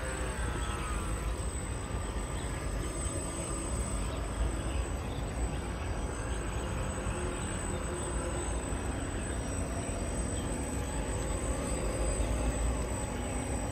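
Motors of a radio-controlled model catamaran ferry running, a faint whine that drifts in pitch, over a steady low rumble.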